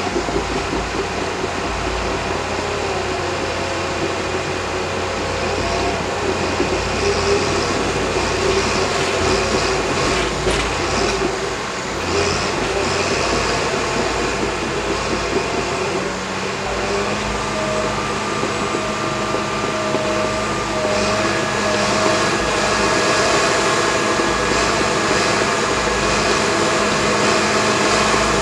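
Cat D6K crawler dozer's six-cylinder diesel engine working under load, with its steel tracks clattering. The engine note changes about halfway through and then holds steady.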